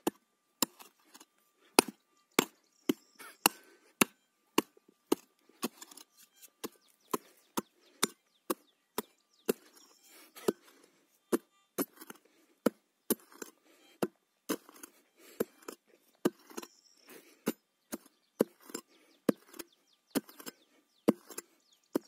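Hand pick-mattock with a removable head chopping into soil again and again, about two blows a second, as a hole is dug deeper.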